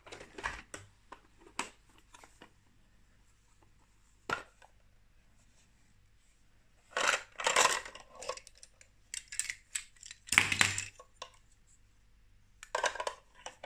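Hard plastic Lego Duplo pieces clattering against each other and the plastic crate as a hand rummages through them. There are a few clicks at the start and a single click about four seconds in. Louder bursts of rattling come from about seven to eleven seconds, and another comes near the end.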